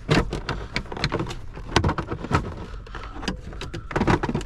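A busy run of sharp clicks, knocks and rattles from hands working loose parts and plastic trim in a car's dashboard.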